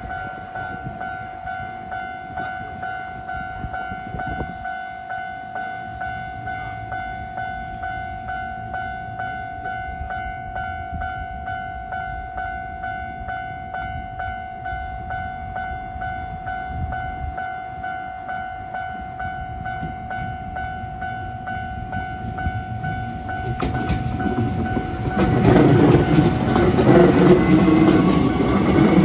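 Japanese level-crossing warning bell ringing a steady, evenly repeating alarm. Near the end a Hankyu electric train comes up and passes loudly, its wheels rumbling on the rails with a rising motor whine.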